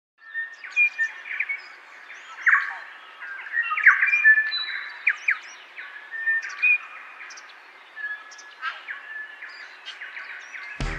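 Several songbirds singing, with many short overlapping whistles, chirps and quick rising glides. Music with a beat comes in suddenly right at the end.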